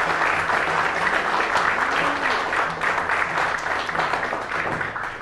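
Audience applauding, with soft music underneath; the clapping dies down near the end.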